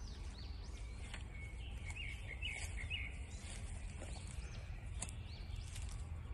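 A small bird gives a quick run of short chirps about two to three seconds in, over a steady low rumble. Faint rustles of footsteps in dry leaf litter come now and then.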